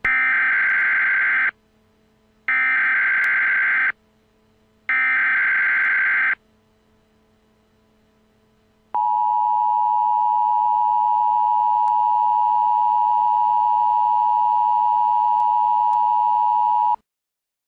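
Three short bursts of Emergency Alert System SAME header data, warbling digital tones about a second and a half each, then the steady two-tone EAS attention signal held for about eight seconds before it cuts off. Together they mark the start of an emergency alert broadcast, here a tornado warning.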